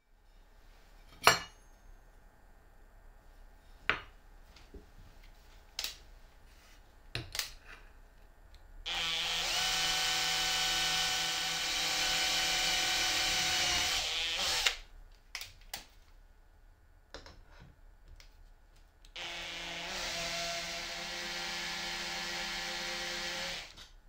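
A cordless drill runs twice for about five seconds each, boring a twist bit through an aluminium T-track rail, its motor a steady whine. Before that come a few sharp knocks and clicks, the loudest about a second in, as the metal rails are handled and set down on the plywood.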